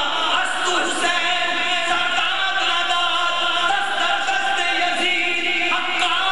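A man singing a naat, devotional verse in praise of the Prophet, unaccompanied into a microphone, in long, held melodic lines that bend up and down.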